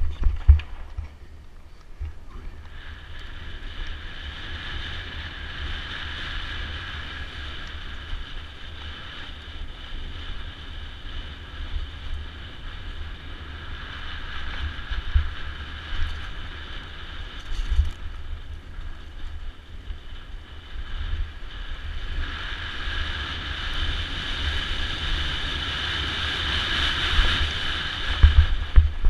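Mountain bike descending a dirt singletrack, heard from a mounted camera: wind buffeting the microphone, frequent low thuds as the wheels hit bumps and roots, and a steady high whirring hiss that grows louder over the last several seconds.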